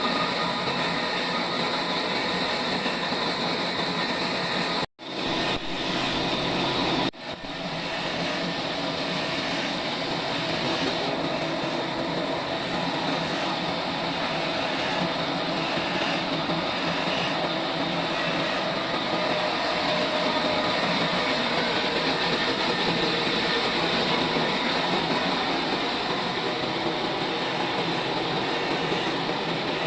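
Sawmill saw with a log trolley running steadily while sawing a mulberry log: a continuous mechanical noise that breaks off for an instant twice, about five and seven seconds in.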